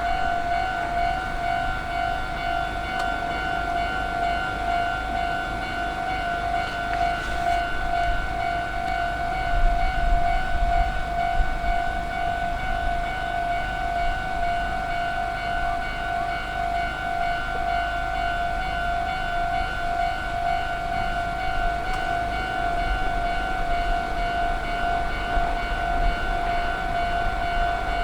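Electronic railway level crossing alarm sounding its rapid, repeated "kan-kan" tone without a break, with a low rumble underneath.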